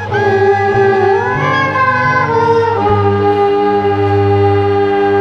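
Orchestral wind players on makeshift instruments made from plastic pipe and hose playing together, moving through a few notes and then holding a long final chord that cuts off near the end.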